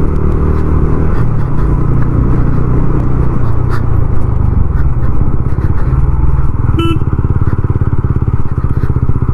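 TVS Ronin 225's single-cylinder engine running loud and steady while riding. About six and a half seconds in, its note changes to a rapid, even throbbing. A short beep sounds just before seven seconds.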